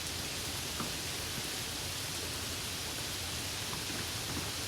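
Steady rain-sound ambience: an even hiss of falling rain with faint scattered drop ticks.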